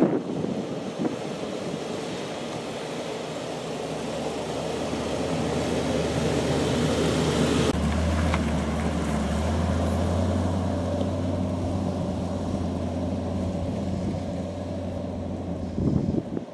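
A four-wheel drive running on a dirt track. Its engine and tyre noise builds as it comes closer. About halfway through it changes suddenly to a steady low engine drone as the vehicle pulls away, easing near the end.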